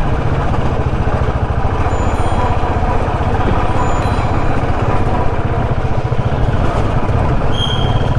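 Single-cylinder motorcycle engine running steadily at low revs, with no revving.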